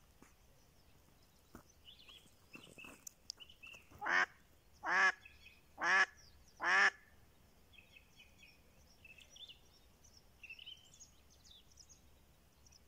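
Live decoy hen duck quacking four times, about a second apart, calling to lure a drake.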